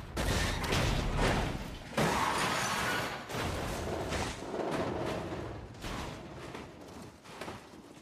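Crash sound effects from a film soundtrack: a string of heavy thuds and smashing impacts about a second apart, each fading out, under music that grows stronger near the end.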